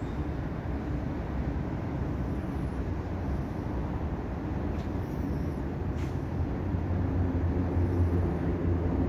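Steady low hum and rumble of an empty underground metro station, with a few faint clicks and the rumble growing slightly near the end.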